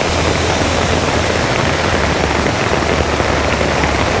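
Steady rush of a creek in flood, runoff from the mountain that has turned into a torrent, heard close up.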